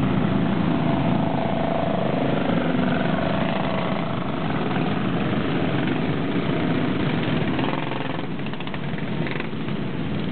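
Several small race-car engines running at idle together, a steady drone.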